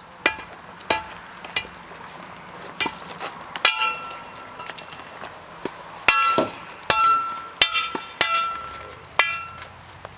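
Hammer blows striking a drinking fountain to break it apart by hand, about a dozen irregular strikes roughly a second apart, most with a sharp metallic ring.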